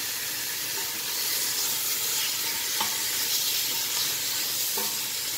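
Meat chunks sizzling as they sear with spices in a large stainless-steel pot, stirred with a wooden spoon; a steady frying hiss with a couple of light knocks.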